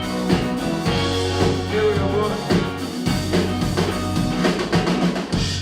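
Rock band playing with a full drum kit and guitars, the kick drum and cymbals prominent.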